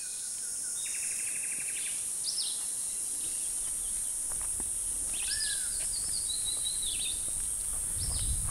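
Forest ambience: a steady high-pitched insect drone with birds calling over it, a rapid trill about a second in, then scattered chirps and whistles. A low rumble builds from about halfway through.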